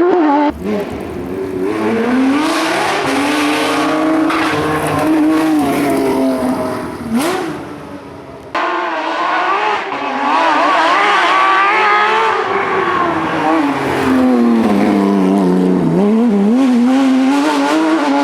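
Porsche 997 GT3's flat-six engine under hard driving, its pitch climbing and dropping repeatedly with the throttle and gear changes. The sound breaks off abruptly twice, about half a second in and again near the middle.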